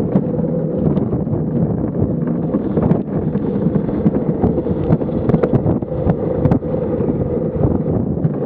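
Luge cart's wheels rolling fast on a concrete track: a loud, continuous rumble with wind buffeting the microphone, broken by a few sharp knocks from bumps in the track.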